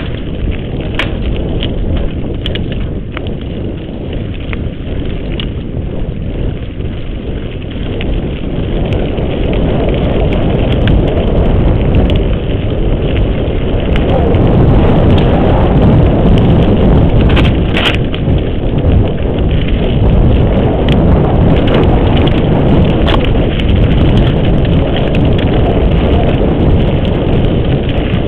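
Mountain bike ridden fast down a dirt singletrack: a steady rush of wind and tyre noise with scattered clicks and rattles, getting louder about ten seconds in as the speed picks up.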